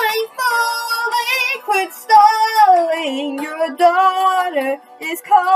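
A young woman singing a slow, sad ballad along with a karaoke backing track, with long held notes and vibrato.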